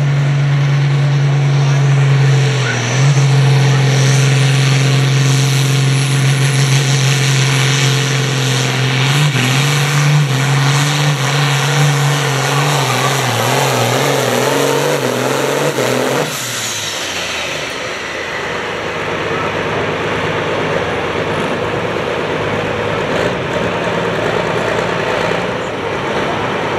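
International Harvester pulling tractor's diesel engine running at full throttle as it drags the weight-transfer sled, a loud steady drone that dips briefly early on and wavers in pitch in the second half. About 16 seconds in the throttle is cut and the engine note drops away sharply, as the pull ends, leaving a lower, rougher running sound.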